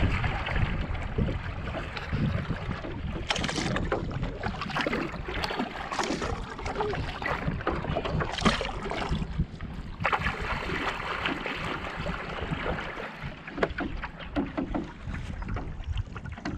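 Kayak paddle strokes splashing and water lapping against the kayak's hull as it is paddled along, an irregular run of splashes over a steady wash of water.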